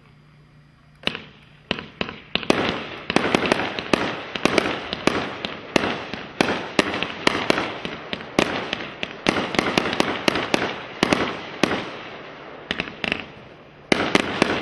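Red Rhino 'Ravaged' 500-gram firework cake firing: a rapid run of shots and bursts, several a second, starting about a second in. It thins out near the end, with one last loud shot just before the end.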